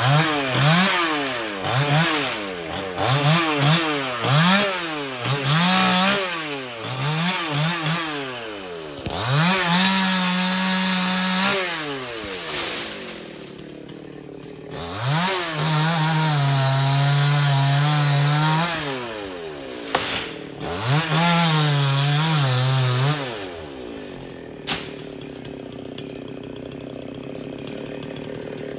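Chainsaw engine revving up and down in quick throttle bursts for the first several seconds, then held at high speed three times while cutting into tree wood, and dropping back to idle near the end.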